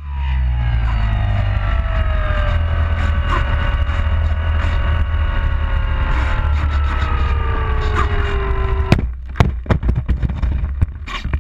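Onboard sound of a Sonic 185 remote-control plane: its motor and propeller whine falls slowly in pitch over heavy wind rumble on the GoPro as the plane comes down low. About nine seconds in the whine cuts off, and a quick run of knocks and scrapes follows as the plane touches down and skids on a gravel road.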